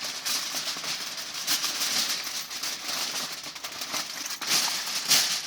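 Aluminum foil crinkling and crackling as it is folded and pinched tight around a chuck roast, double-wrapped to seal it at the stall. A steady rustle of small crackles with a couple of louder crunches near the end.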